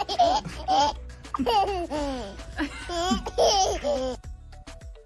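A baby laughing in repeated high-pitched bursts, ending about four seconds in, after which background music carries on.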